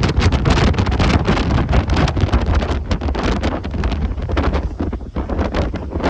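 Strong wind buffeting the microphone, a heavy gusting rumble, over the rush of a rough sea's surf. The buffeting eases a little after about four seconds.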